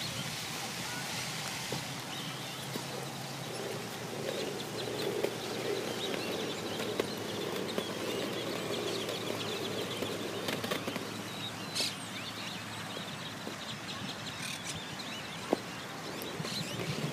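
Outdoor park ambience: a steady background hiss with birds chirping and a few soft knocks.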